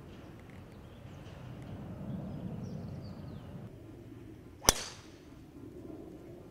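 A golf club striking a teed-up ball on a tee shot: one sharp crack about four and a half seconds in, with a brief ringing tail. Faint bird chirps are heard earlier.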